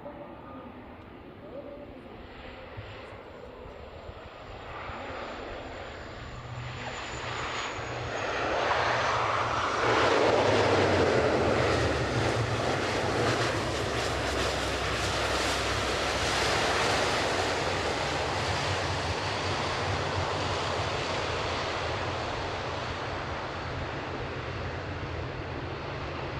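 ANA Bombardier DHC-8-402Q (Q400) turboprop landing. Its steady low propeller and engine drone builds to a peak about ten seconds in, stays loud, then slowly fades. A thin high whine slides down in pitch about seven seconds in.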